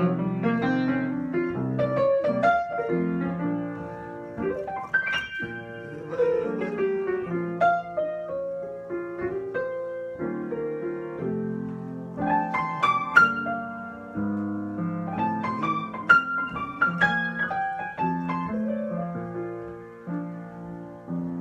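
Solo piano improvisation: sustained chords in the low and middle register, broken by quick runs of notes climbing up the keyboard.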